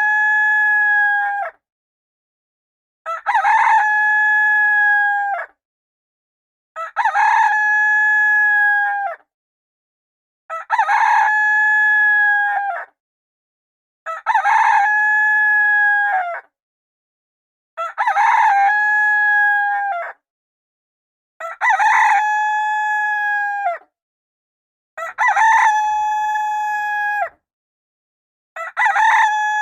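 A rooster crowing as a timer alarm: the same cock-a-doodle-doo repeats about every four seconds, each crow a short opening note followed by a long held note, with silence between crows.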